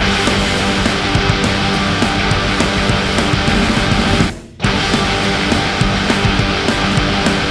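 Heavy metal music with distorted electric guitar, broken by a short silent gap about four and a half seconds in.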